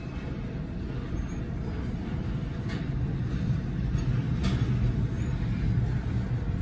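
Freight train of double-stacked container cars passing a grade crossing: a steady low rumble of wheels on rail, heard from inside a car, with a couple of faint clicks.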